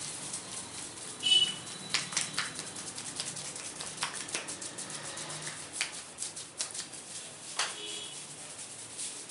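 Hands massaging an oiled scalp and hair: a dense run of quick, irregular taps and wet clicks. A brief high squeak, the loudest sound, comes about a second in, and a smaller one near the end.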